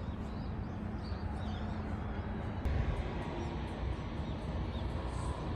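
A steady low rumble with faint, scattered high chirps of small birds and a single sharp click about midway.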